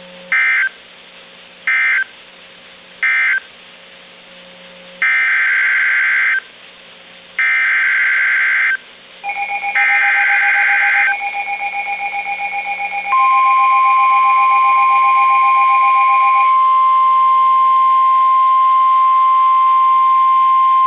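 NOAA Weather Radio SAME data tones: three short shrill bursts that end one message, then three longer bursts of the next alert's digital header. A harsh buzzing tone comes in over the last burst. About 13 seconds in, the steady one-pitch weather radio warning alarm tone starts and holds.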